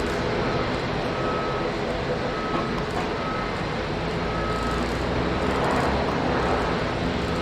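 Jet engines of a Cathay Pacific Airbus A350 (Rolls-Royce Trent XWB) during its landing, a steady rush with a low hum that swells slightly near the end. A faint short high beep repeats about once a second.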